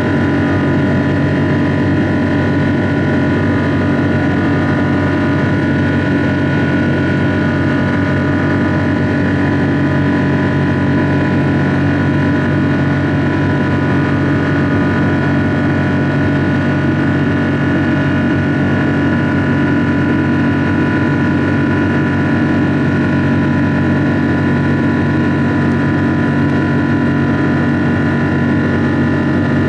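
Cabin noise of a Boeing 777-200ER in the climb: the steady, loud drone of its Rolls-Royce Trent engines and the rush of air, with several steady humming tones in it and no change.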